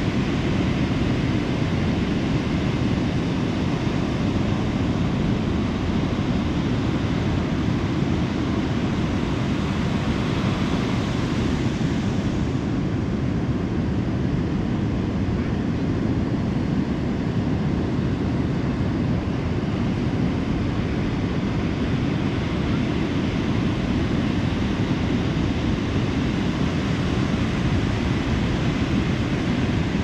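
Ocean surf on a sandy beach: a steady, unbroken wash of breaking waves, heaviest in the low rumble, with the higher hiss easing a little about halfway through.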